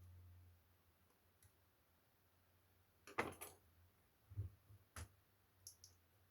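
Faint clicks, a short rattle and a low knock from handling the plastic parts of a laptop being taken apart, over a quiet room.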